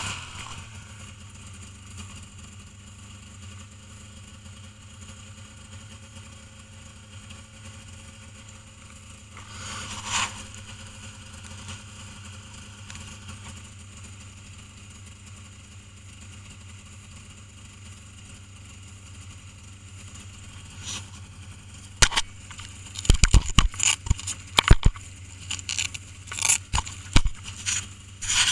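Snowmobile engine idling with a steady low hum, swelling briefly about a third of the way in. Near the end, a run of loud, sharp knocks and scrapes right at the microphone.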